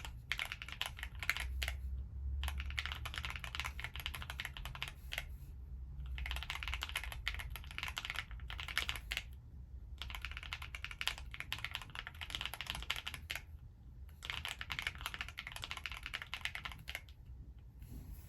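Fast, continuous typing on an Alice-layout mechanical keyboard: dense runs of keystroke clicks, broken by brief pauses every few seconds.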